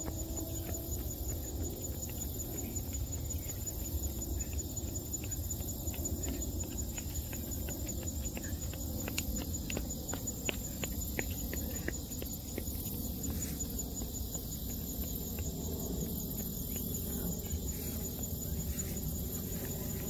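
Insects singing: a steady, high-pitched trill with a fast, even pulse, over a low rumble and a few faint ticks.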